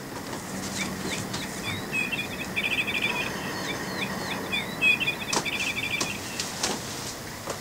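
High-pitched, bird-like chirping: short chirps leading into fast trills, heard as two matching phrases each about a second and a half long. A low hum runs through the first half, and a couple of soft knocks come near the end.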